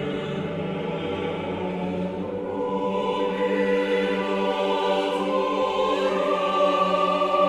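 Background music of slow, held chords, its notes changing twice and growing gradually louder.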